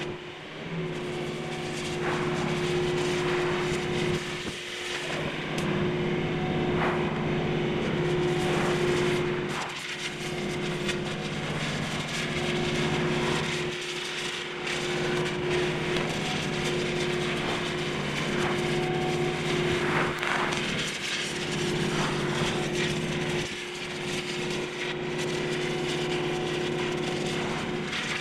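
Steady machine drone with a constant hum, dipping briefly a few times, over a noisy hiss with scattered clicks, from equipment working on a demolition site.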